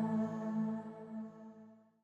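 Ambient background music: a held, sustained chord fading out.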